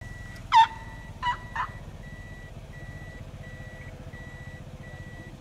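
Three loud animal calls in quick succession, the first the loudest, each sliding down in pitch. Under them runs a low steady rumble, with a high beep repeating a little under one and a half times a second.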